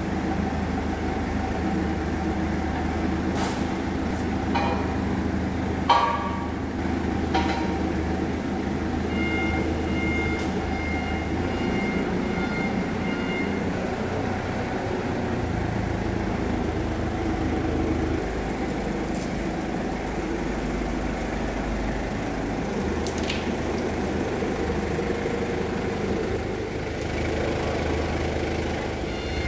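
Forklift engine running steadily, with several sharp metal clanks in the first eight seconds and its reversing beeper sounding for a few seconds about ten seconds in.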